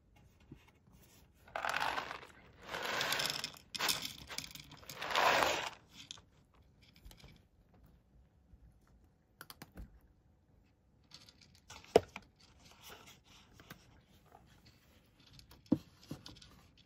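Dry cat kibble poured from a paper carton into a shallow dish, rattling in several quick pours over a few seconds. Then a cat crunching the kibble, with scattered crackles and occasional sharp clicks.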